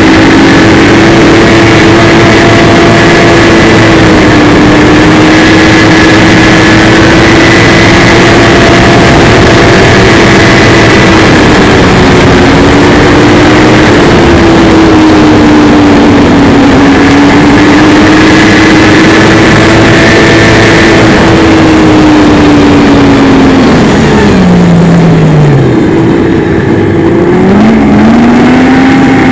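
Snowmobile engine running at trail speed, loud and close, its pitch wavering as the throttle changes. About 25 seconds in the pitch drops steeply as the throttle is let off, then climbs again as the sled speeds back up.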